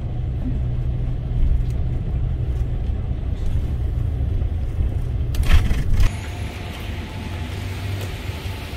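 Steady low road-and-engine rumble of a moving vehicle, heard from inside it. A short sharp knock or rattle comes about five and a half seconds in, after which the rumble eases a little and a faint hiss takes over.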